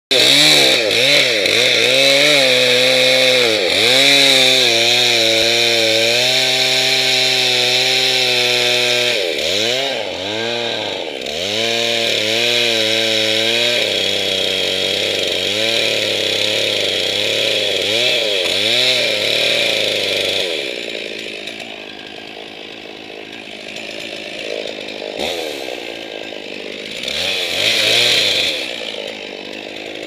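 Gas chainsaw cutting through an elm trunk at high revs, its pitch dipping and recovering again and again as it works the cut. After about twenty seconds it runs lower and quieter, with a brief rise in revs near the end.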